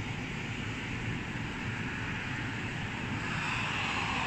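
A car driving by on the road: steady tyre and road noise that grows louder near the end as the car approaches.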